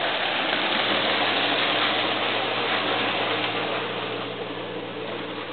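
Pickup truck's engine running under throttle as it drives across an icy driveway, loudest about two seconds in and then fading as the truck pulls away.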